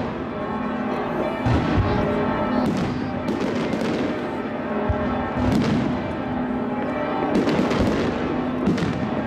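Fireworks display: aerial shells bursting over and over with constant crackling, and sharper bangs every second or so.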